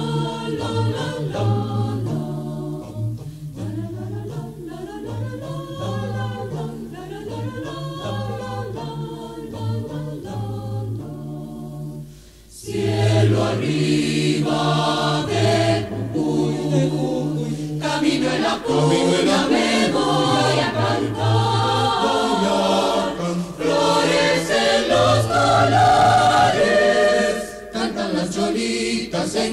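Polyphonic choir singing a zamba, played from a cassette recording. A softer passage with prominent low voices dips briefly about twelve seconds in, then the full choir comes in louder.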